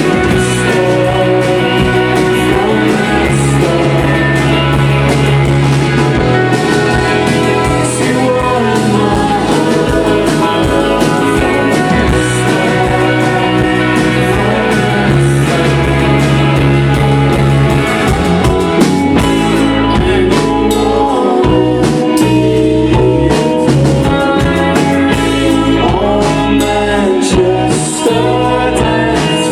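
Live rock band playing a song, with singing over the instruments.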